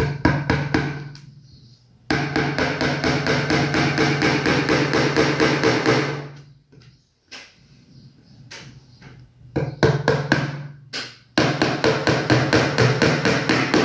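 Small claw hammer tapping tacks into a wooden canvas frame: a few single blows, then a quick run of light taps from about two seconds in to six seconds. A few scattered blows follow, then another quick run of taps near the end.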